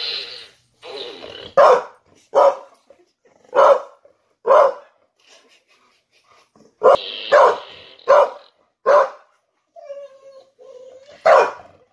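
Pit bull barking at a toy fart gun: about nine short, sharp barks at irregular spacing, with a pause near the middle.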